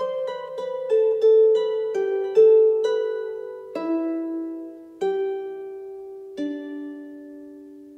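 Irish harp playing a falling line of plucked notes, quick at first, then slowing to a few single notes left to ring and fade.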